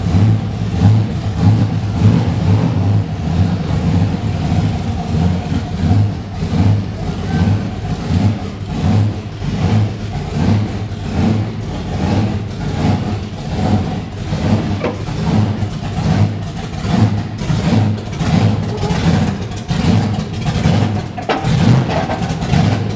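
Large truck engine running at idle, a steady low drone that swells and fades in an even pulse.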